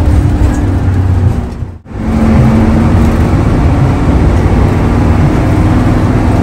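Hino AK8 bus's diesel engine running steadily under way, with heavy road rumble. The sound cuts out for a moment about two seconds in.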